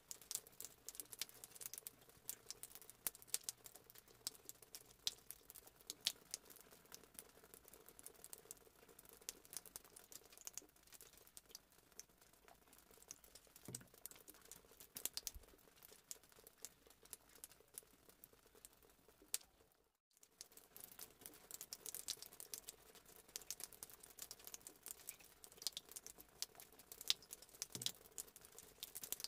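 Spatula folding whipped sponge-cake batter in a bowl: faint, irregular wet clicks and pats, with a brief break about two-thirds through.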